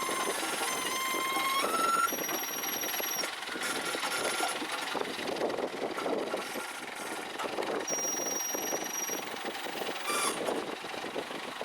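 ACE 14XW hydra crane's engine and machinery running steadily, with several clear held tones of about a second each over it. One tone is near the start, a higher one about 2 s in, and a very high one about 2 s in and again about 8 s in.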